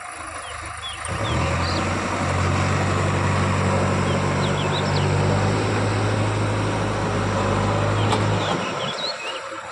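JCB 3DX backhoe loader's diesel engine revving up about a second in, running steady and loud at high revs, then dropping back near the end. Birds chirp over it.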